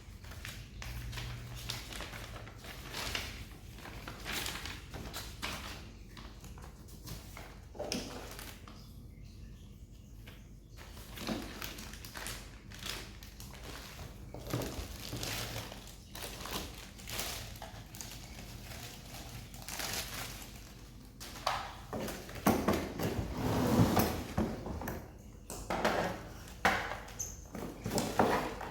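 Scattered knocks, clicks and light rustles of things being handled and set down, with a louder run of knocks a little before the end.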